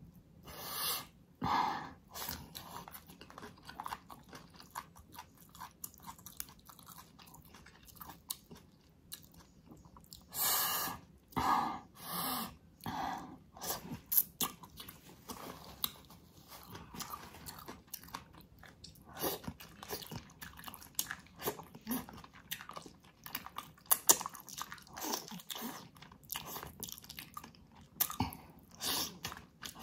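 Close-miked eating sounds: a person chewing and biting spicy braised ox feet and greens, with wet smacking and occasional crunches in irregular bursts. A few louder bursts come in the middle.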